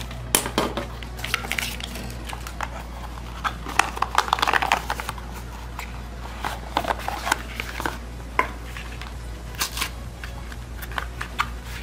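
Thin white cardboard smartphone box and its inner tray and sleeve handled by hand: scattered clicks, taps and scraping of card on card, with a denser burst of rustling about four seconds in, over a steady low hum.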